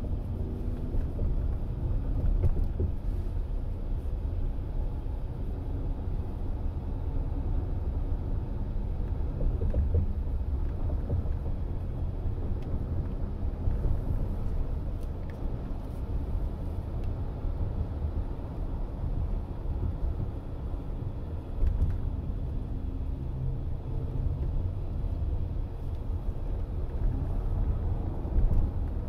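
Steady low road and tyre rumble heard inside the cabin of a Chrysler Pacifica Hybrid minivan driving along a city street, with a couple of brief louder knocks about three quarters of the way through and near the end.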